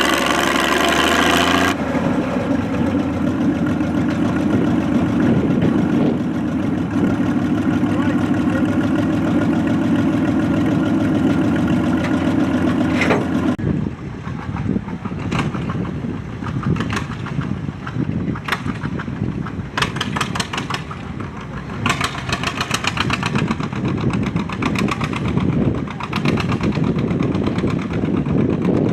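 Antique farm tractor engines running at a tractor pull. The first half is a steady engine hum. About halfway it changes abruptly to a rougher, uneven engine sound with sharp cracks from the exhaust.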